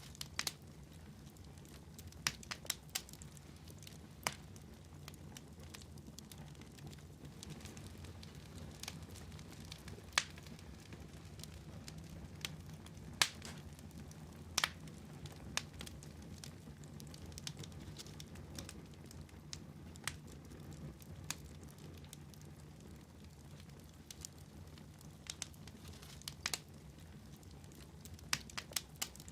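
Wood fire crackling in a fireplace: irregular sharp pops and snaps, a few louder than the rest, over a low steady background.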